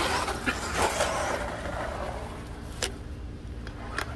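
Croboll RC monster truck running, its electric motor driving it across grass and onto pavement, with two sharp clicks near the end.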